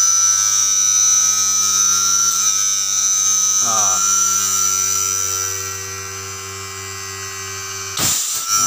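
A 2 HP inverter air-conditioner compressor running on its repaired inverter board, a steady electrical hum with a high whine over it. There is a short falling sweep partway through and a brief noisy burst near the end. The run shows the board now drives the compressor after its P1-error repair.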